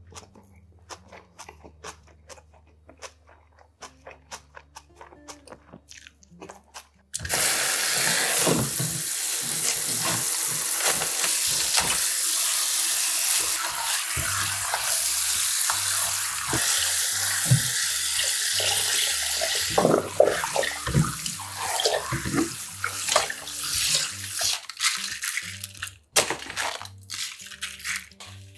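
Kitchen tap running in a spray onto napa cabbage in a plastic container in a stainless-steel sink while hands rinse the leaves. The water starts about seven seconds in and stops shortly before the end, followed by soft handling noises of the wet cabbage.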